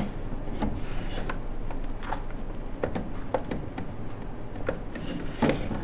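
A replacement lamp cartridge being pushed and worked into the lamp bay of a Mitsubishi rear-projection DLP TV by hand: about a dozen irregular clicks and knocks. The loudest knock comes near the end.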